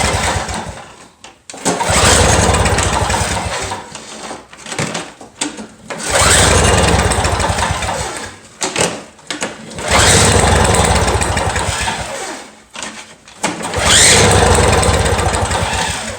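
Recoil pull-starter of a two-stroke Toro snow blower pulled about four times, a few seconds apart, each pull spinning the engine over for a couple of seconds without it catching. The spark plug is out and a spark tester is on the lead, so the engine is being cranked to check for ignition.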